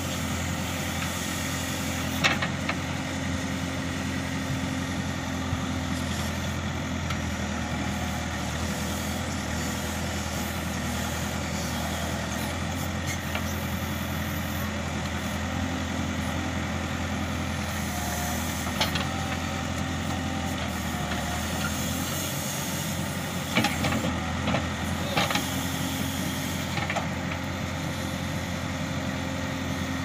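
Manitou TLB 740S backhoe loader's diesel engine running steadily under hydraulic load as the backhoe digs. A few short clatters come from the bucket striking soil and stones.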